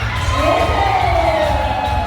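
A crowd cheering and shouting over loud party music with a heavy, pulsing bass. One long falling cheer rises above the crowd about halfway in.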